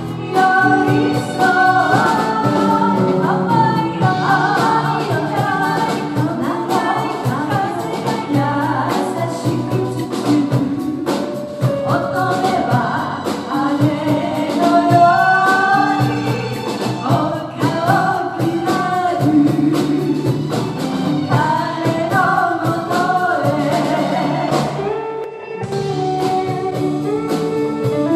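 A live pop band of electric guitar, keyboard, bass and drums playing while two women sing together into microphones. Shortly before the end the singing stops after a brief dip, and the band plays on.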